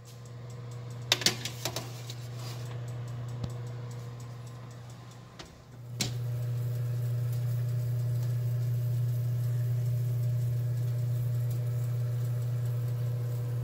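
A metal sheet pan sliding onto an oven rack, clinking a few times about a second in, over a steady low hum that gets louder about six seconds in.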